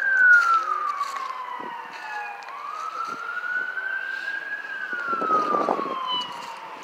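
Emergency vehicle siren wailing. Its pitch falls, climbs slowly for about two seconds, then falls again toward the end.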